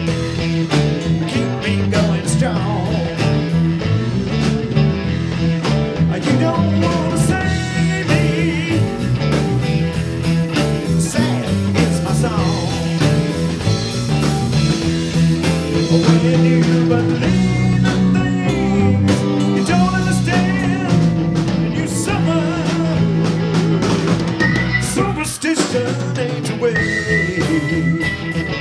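Live rock band playing: electric guitar, bass guitar and electric keyboard, with a long held high note near the end.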